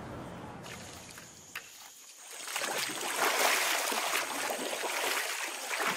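River water splashing and swishing as people wash laundry by hand and wade in a shallow river, starting about two seconds in.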